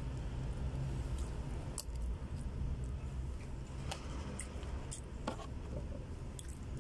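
Metal spoon scraping and clicking against a plastic food container while eating, a few separate sharp clicks, over a steady low hum.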